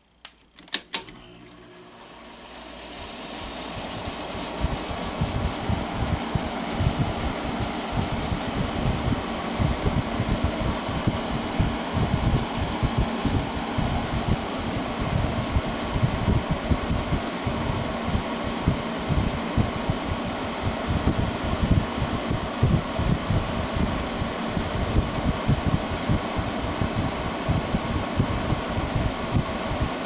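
1999 Whirlpool ACM052XJ0 5,000 BTU window air conditioner switched on: a few clicks from its control knob, then the fan spins up over about three seconds and runs steadily with an uneven low rumble.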